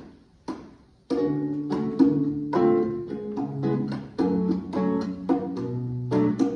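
Two last count-in clicks about half a second apart, then about a second in a small acoustic band starts a song's instrumental intro: acoustic guitar with keyboards and a low bass line.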